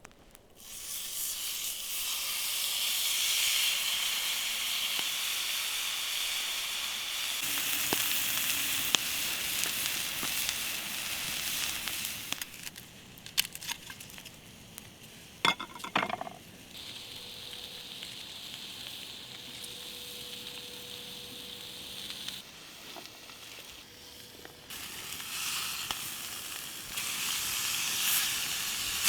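Campfire burning with a steady hiss and occasional crackles, with a few sharp snaps about halfway through. A faint thin whistle runs for several seconds after that.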